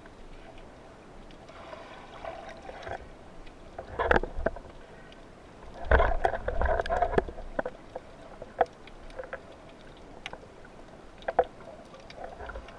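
Underwater sound heard through a camera housing: a low murky water background with scattered sharp clicks and knocks, and short swells of water noise about four seconds in and again, louder, around six to seven seconds in.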